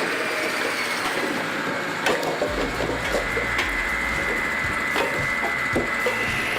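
Firewood processor splitting logs: wood cracking and splintering with sharp knocks, over a steady high machine whine.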